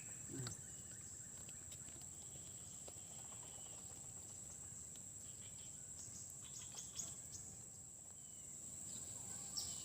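Steady high-pitched insect chorus, with a few faint clicks about six to seven seconds in.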